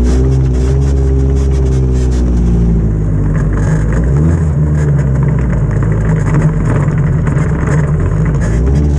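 Off-road racing buggy's engine running under light throttle while driving slowly over dirt, heard from on board; the engine note rises and falls several times, most clearly in the first few seconds and again near the end.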